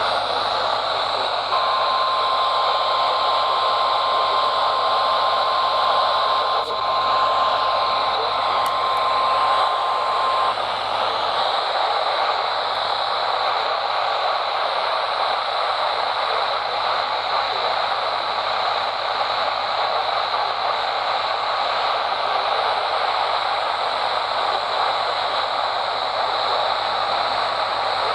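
Loud, steady static hiss from a weather radio receiver, the sign of the station having gone off the air mid-test. The National Weather Service 1050 Hz warning alarm tone runs faintly under the hiss, starting about a second and a half in and cutting off about ten seconds in, leaving only the static.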